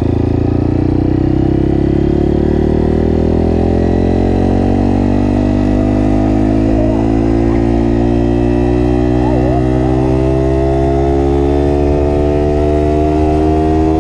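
Honda CRF230F dirt bike's single-cylinder four-stroke engine running under load on the move, its pitch climbing slowly and steadily as the bike gathers speed in one gear.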